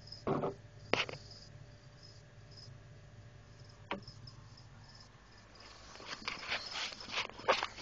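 A high chirp repeats steadily in the background, like a chirping insect. Over it come a couple of sharp knocks near the start, one more about four seconds in, and a quick run of clicks and scrapes over the last two seconds.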